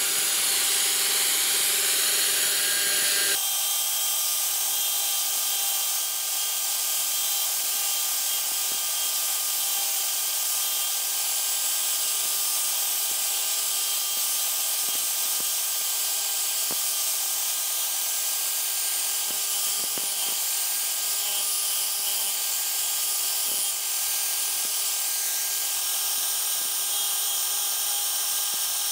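Angle grinder with a sanding disc running steadily, a constant motor whine with a hiss, while a wood-and-epoxy knife blank is sanded to shape against the disc.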